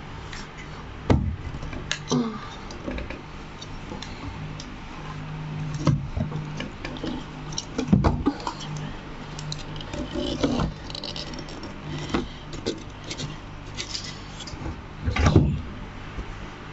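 Scattered metallic clicks, taps and knocks from tools and parts being handled while an overlock sewing machine is taken apart, over a steady low hum; the loudest knock comes near the end.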